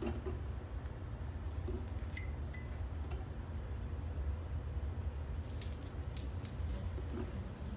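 Knife cutting an onion held in the hand, with a few faint clicks and one short ringing clink of something touching the glass blender jar about two seconds in, over a steady low hum.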